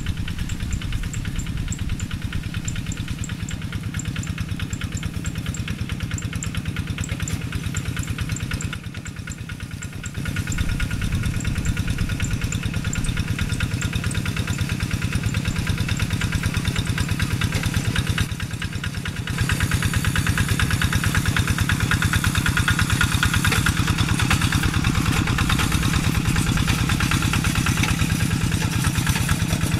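Single-cylinder Kubota diesel engine of a Quick two-wheel hand tractor running steadily with a fast, even chugging as the tractor works a wet paddy on steel cage wheels. The engine grows louder about two-thirds of the way through.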